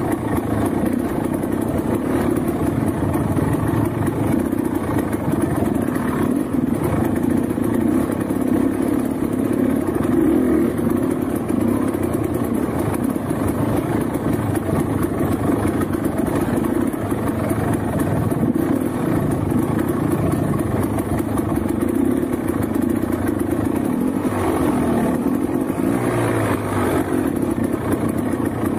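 Trail motorcycle engine running steadily under way, holding an even pitch.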